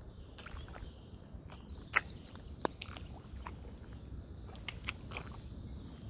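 Footsteps in socks through wet mud: soft squelches and wet smacks as each foot presses into and pulls out of the mud, with a handful of sharp clicks, the loudest about two seconds in.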